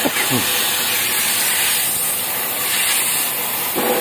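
Oxy-fuel cutting torch flame hissing steadily as it plays on the steel shell of a motorcycle muffler.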